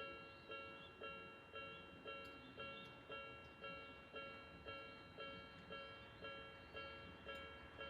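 Japanese level-crossing warning bell of the electronic Odakyu type ringing, a pitched ding repeating about twice a second.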